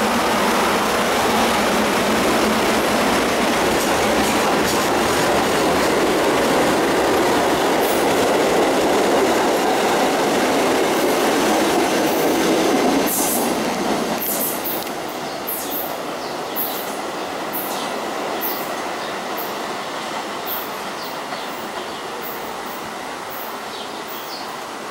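Staten Island Railway R44 subway train running past on the tracks, loud and steady, then quickly dropping off about halfway through and fading away as it recedes down the line. As it fades, short high chirps come through.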